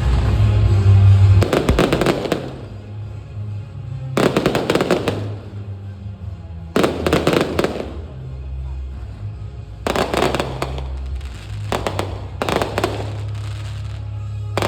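Aerial fireworks going off in a series of crackling volleys, one every two to three seconds, over steady bass-heavy music.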